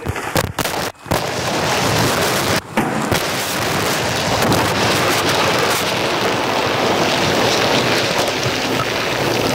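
Dense, continuous crackling and rustling of plastic packaging and paper being crumpled and handled close up. It comes in a few short broken-off bursts at first, then runs on without a break from about a second in.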